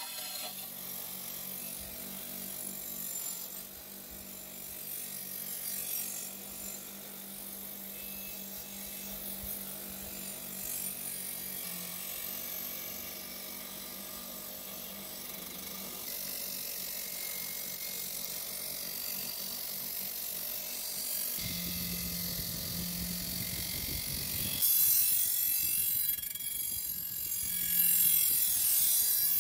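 Electric bench motor spinning a wire wheel, a steady hum under the scrubbing hiss of the wire bristles against a rusty steel scissor blade, stripping the rust. The sound changes about twenty seconds in and grows louder and harsher near the end.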